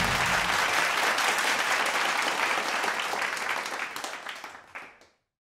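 A large audience applauding, many people clapping steadily, then fading out over the last couple of seconds until it stops about five seconds in.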